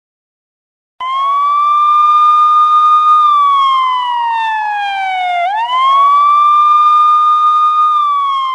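A siren wailing, starting about a second in. Its tone rises and holds, glides slowly down, snaps back up about halfway through, holds again, and begins to fall near the end.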